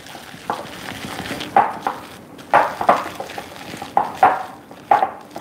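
Sticky cauliflower pasta dough being mixed and mashed in a glass bowl as flaxseed meal is worked in to dry it: soft stirring with about seven short knocks against the glass.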